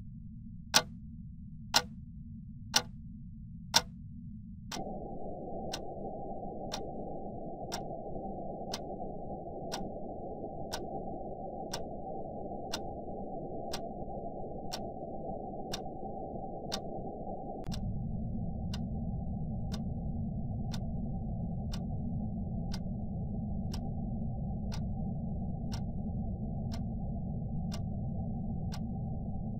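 Wall clock ticking about once a second, the first four ticks loudest. Under it runs a steady, muffled noise that grows fuller about five seconds in and turns deeper and louder about halfway through.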